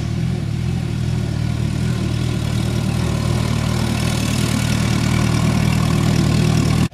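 Vintage tractor engine idling steadily, loud and close.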